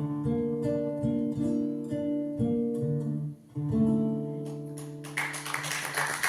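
Solo guitar plucking the closing notes of a song, the notes ringing out and thinning. About five seconds in, the audience breaks into applause.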